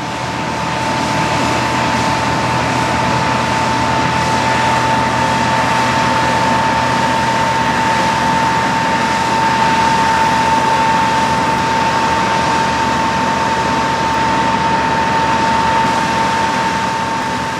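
Deutz-Fahr M2780H combine harvester running, powered by its air-cooled six-cylinder Deutz diesel: a steady high whine over a dense mechanical rush. It swells over the first couple of seconds and eases near the end.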